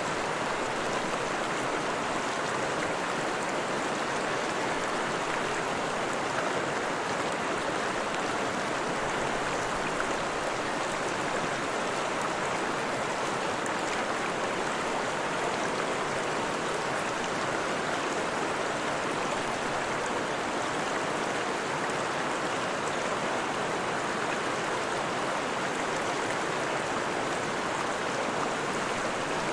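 Steady rushing of flowing water, like a stream running over stones, even and unbroken throughout.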